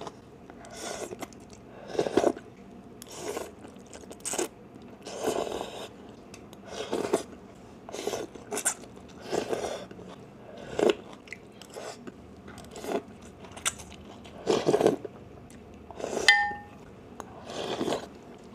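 Close-miked eating of phở: rice noodles and broth slurped and chewed in short bursts, about one every second. A brief clink of utensil on the bowl comes near the end.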